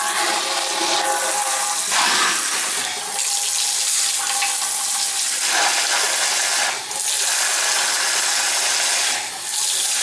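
Water spraying from a Dishmaster faucet's brush sprayer head into a stainless steel sink, with a stream from the spout also running, making a steady hiss. The hiss dips briefly three times.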